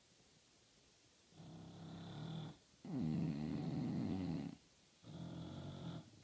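English bulldog snoring: about a second and a half in, three rasping snoring breaths follow one another, the middle one the loudest and longest.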